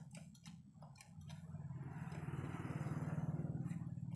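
A motor vehicle's engine passing close by, swelling to a peak about three seconds in and then fading, over a steady low engine hum. A few sharp clicks come in the first second.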